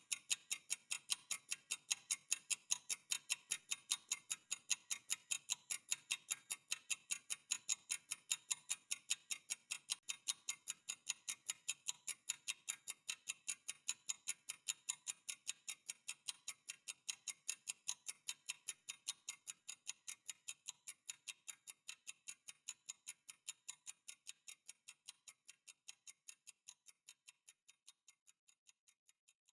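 Clock ticking in a steady, even rhythm, gradually fading away over the last several seconds.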